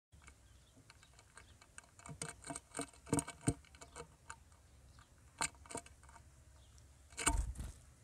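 House sparrows pecking corn kernels from a metal pan: irregular sharp ticks and taps, busiest in the middle, with a louder rustling thump near the end.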